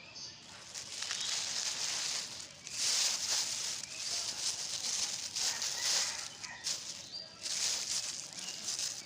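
Crackly rustling and crinkling in several uneven bursts as old plastic and cloth litter is pulled up and handled. Loudest about three seconds in and again near the end, with a few faint bird chirps.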